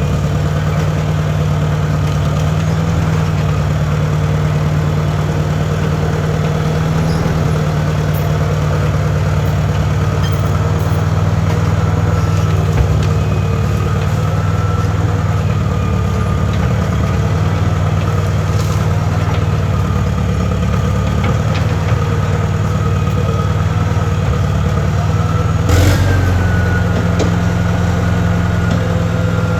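Compact track loader's engine running steadily under light load, its pitch shifting a little now and then. Near the end there is a single sharp knock.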